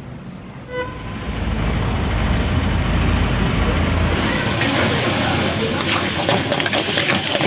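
Steady road and engine noise of a car driving along a street, rising about a second in. A run of short crackles joins in during the last few seconds.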